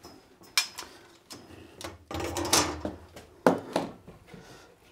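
Long metal circular-saw guide rail being taken off a wall rack and handled: a series of sharp knocks and clicks, with a short rattling clatter in the middle.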